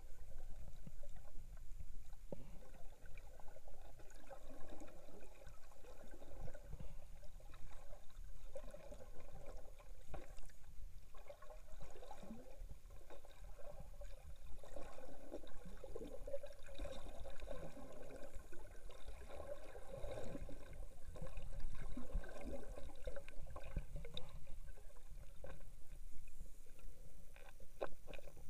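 Muffled underwater sound heard through an action camera's waterproof housing: continuous low gurgling and sloshing of sea water around the case, with a faint rumble underneath.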